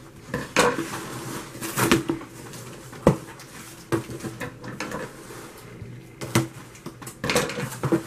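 A cardboard shipping box being opened by hand: packing tape torn off and the flaps pulled open, giving irregular sharp knocks and crackles of cardboard with a few longer rasping tears.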